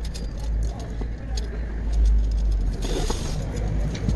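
Steel spokes clicking and clinking against the hub and rim as a motorcycle wheel is laced by hand, with a brief louder rattle of small metal parts about three seconds in. A low steady rumble runs underneath.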